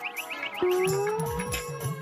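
Background music: a held melody note that slides slowly upward about half a second in, over a low bass line pulsing about twice a second.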